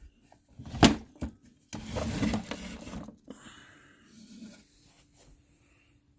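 Handling of an antique sewing machine's wooden cabinet and the accessories kept inside it: a sharp knock about a second in, then a couple of seconds of rummaging and rattling that fades out.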